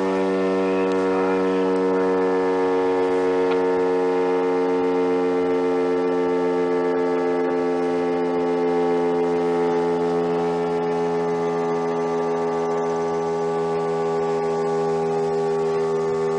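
Federal Signal STH-10 electromechanical outdoor warning siren sounding a steady two-tone chord, its pitch sinking very slowly as it winds down.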